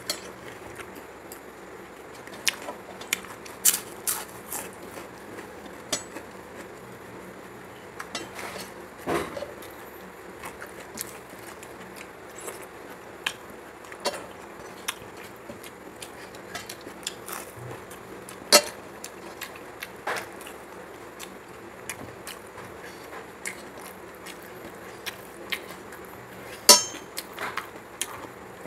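Scattered light clinks and taps on a brass plate and steel bowls as rice and curry are mixed and eaten by hand, at irregular intervals with a few louder knocks.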